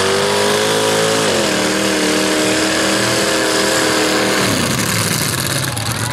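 Mud-drag vehicle's engine at full throttle, its pitch dropping once about a second in as it shifts up, then held high until it lets off about four and a half seconds in, with a loud rushing noise throughout.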